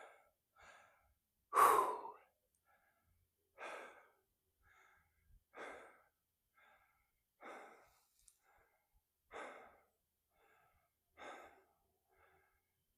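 A hiker breathing hard while climbing a steep trail: loud exhales about every two seconds, with quieter inhales between them, from the exertion of the ascent.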